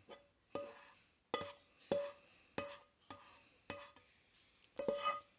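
A utensil repeatedly clinking against a ceramic plate or bowl. There are about eight strikes, roughly every half second to second, each leaving a short ringing tone, with a quick cluster near the end.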